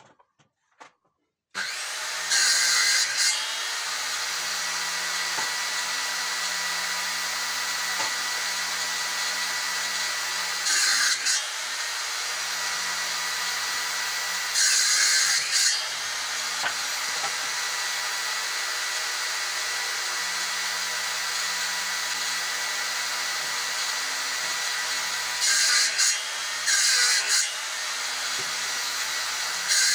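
Steel-frame bench circular saw running steadily with a whine, starting abruptly about a second and a half in. Six times its note turns into a louder, harsher burst as the blade cuts through a wooden board.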